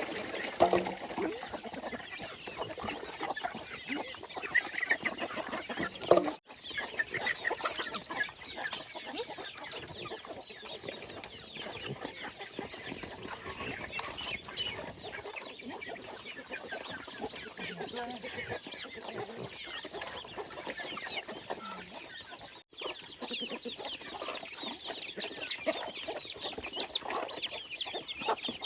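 A flock of chickens clucking and chirping continuously, many short overlapping calls.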